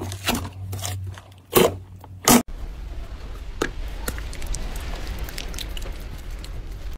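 Hands squeezing and stretching thick slime: wet squelches and crackling pops, the two loudest about one and a half and two and a half seconds in. After that a quieter hiss with a few faint sticky clicks as hands press and rub slime.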